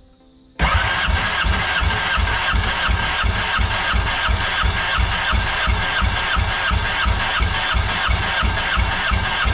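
Four-cylinder Yamaha jet boat engine cranking on its starter with the spark plugs out, held at cranking speed for a compression test, with an even rhythmic chugging from the compression strokes. It starts suddenly about half a second in and does not fire.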